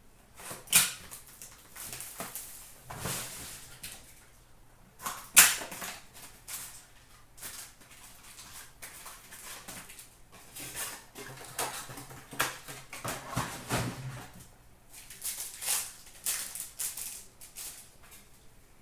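Hockey trading cards and clear plastic card holders being handled: rustling, shuffling and sliding, with scattered clicks and sharp snaps about a second in and about five seconds in.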